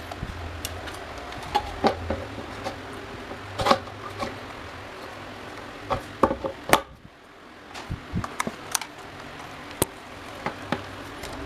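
Irregular clicks, clinks and knocks of small metal fan parts and tools being handled, over a steady low hum.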